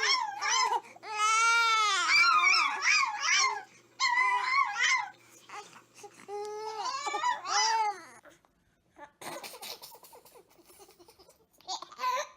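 A young child crying and wailing in long, drawn-out cries that rise and fall in pitch, which break off about eight seconds in; a short cry comes again near the end.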